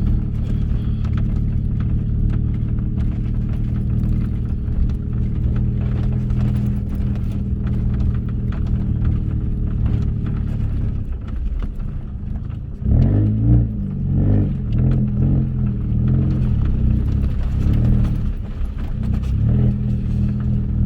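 Lowered Mini's engine running steadily at low speed as the car crawls over a rough forest track. About two-thirds of the way through it starts revving unevenly, with knocks and clatter as the lowered car bounces and shakes over the rough ground.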